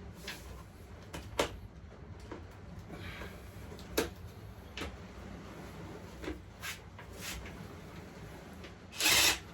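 Scattered light clicks and knocks of tools on metal parts, then near the end a short burst from a power impact gun spinning a bolt out during the teardown.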